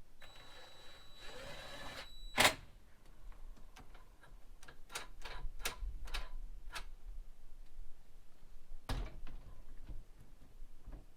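Hands working the lock mechanism of a newly hung glass panel door. A couple of seconds of scraping with a faint steady high tone, then one sharp click, a run of small clicks, and a knock near the end.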